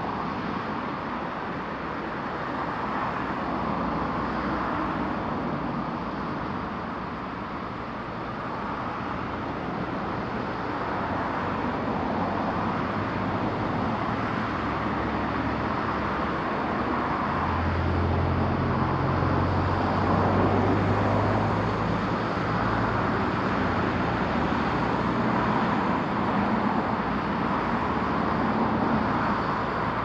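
Steady outdoor road-traffic noise. A lower engine hum rises and passes about two-thirds of the way through.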